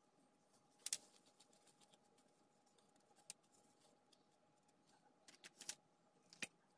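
Faint handling sounds: scattered short clicks and rustles from hands in disposable plastic gloves scooping curd dough from a metal bowl, rolling it into a syrnik and setting it down on parchment paper on a baking tray.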